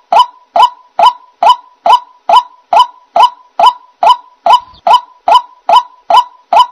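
White-breasted waterhen calling: a steady, evenly spaced series of short, loud 'ruak' notes, a little over two a second, each starting sharply and fading fast.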